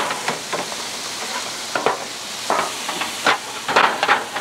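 Barbecue-sauced chicken sizzling on the hot grate of a Char-Griller Gravity 980 charcoal grill, with metal tongs clacking and scraping several times as the whole spatchcocked chicken is lifted off.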